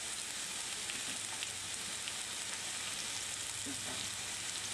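Pineapple slices sizzling steadily in a hot, oiled grill pan, with a few faint crackles.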